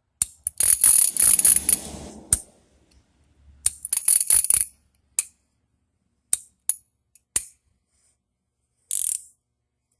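Metal ratcheting wrenches clinking and rattling against each other as they are handled. There are two bursts of bright metallic jingling, each a second or so long, then a few single clicks and a short rattle near the end.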